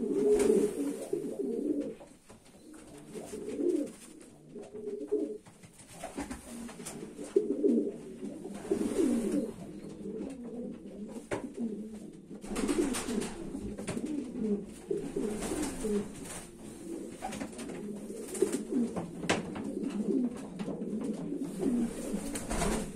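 Racing pigeons cooing over and over, low wavering coos that overlap one another. Scattered brief knocks and rustles come through the cooing.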